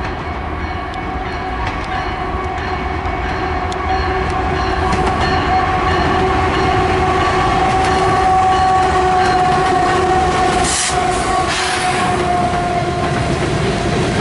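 Union Pacific freight train led by two GE ES44AC diesel locomotives passing close by. Its horn holds a long steady chord that fades near the end, over the rising rumble of the engines and then the rolling of covered hopper cars.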